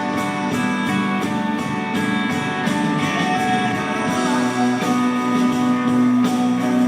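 Live rock band playing a slow song in an instrumental gap between vocal lines, with guitars prominent over sustained chords. A held low note comes in about four seconds in.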